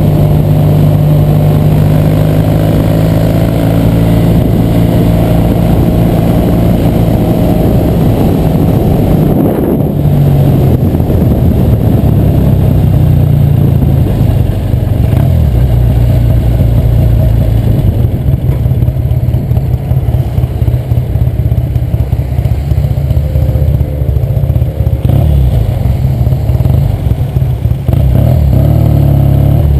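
1966 Triumph TR6R Trophy's 650cc vertical-twin engine running under way on the road, its pitch shifting a few times as the rider changes speed, with a brief dip about nine seconds in.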